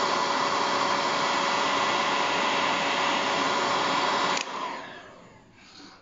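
Stanley heat gun blowing hot air onto heat-shrink tubing over a soldered wire joint: a steady whir with a fan tone. It is switched off about four and a half seconds in and the sound fades away.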